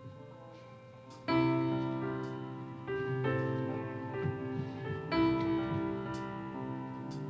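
Keyboard playing slow, sustained chords, with a new chord struck about a second in and two more following, as the quiet instrumental opening of a worship song.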